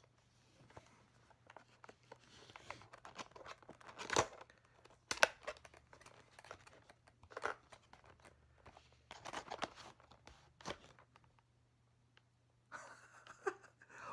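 Tape being picked and torn off a sealed cardboard box and the card flap pried open, in short irregular rips and rustles. Two sharp tears stand out, about four and five seconds in.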